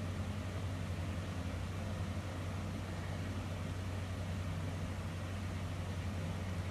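A steady low hum under a constant hiss.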